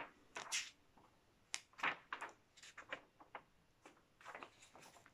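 Pages of a glossy paper sewing magazine being leafed through, a string of short, faint rustles and flicks as someone searches for a page.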